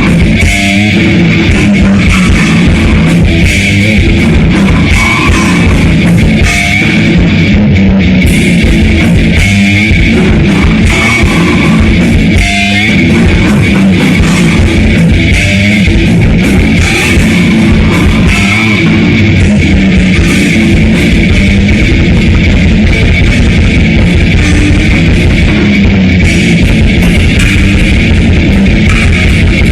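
Grindcore/death-metal band playing loud in rehearsal, with electric guitars and drum kit in a dense, unbroken wall of sound.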